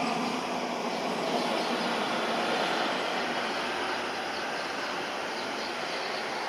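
Embraer 170 jet airliner on landing approach, its engines heard as a steady distant rush of noise that eases slightly in the last couple of seconds.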